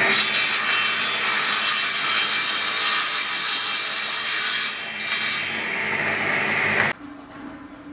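Table saw cutting a block of wood, the blade running loud and steady through the cut; the sound cuts off abruptly about seven seconds in.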